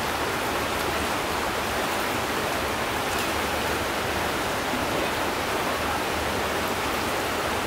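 Fast-flowing river current rushing past the bank: a steady, even rush of water.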